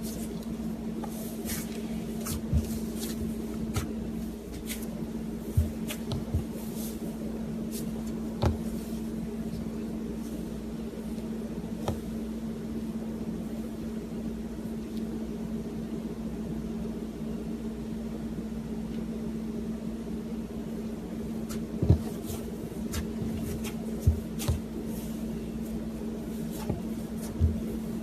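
Cloud slime being stretched and squeezed by hand, with soft crackling and a scattering of sharp pops and clicks, over a steady background hum.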